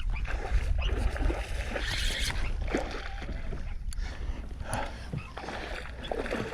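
Water splashing and sloshing around a kayak, with a low rumble and a few short knocks, as a hooked redfish is fought beside the boat.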